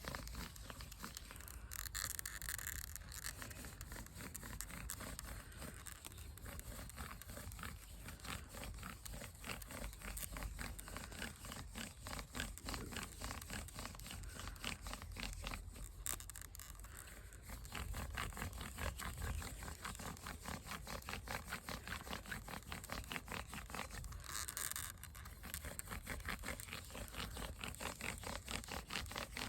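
Hand-drill friction fire: a wooden spindle spun back and forth between the palms, grinding and scraping in the hearth board's socket in a rapid, steady rhythm as the wood heats.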